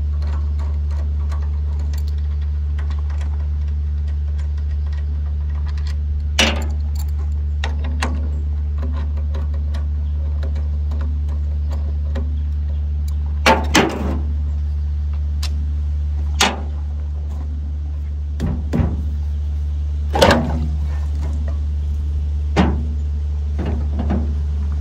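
Metal hand tools and parts of a rust-seized water pump clinking and knocking now and then, a dozen or so scattered sharp clinks as the pump is taken apart, over a steady low hum.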